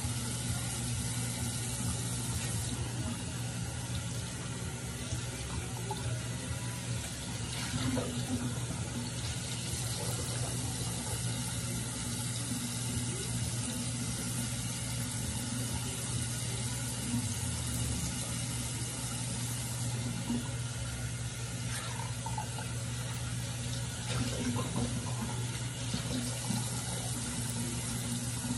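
Bathroom sink tap running steadily, with a steady low hum underneath.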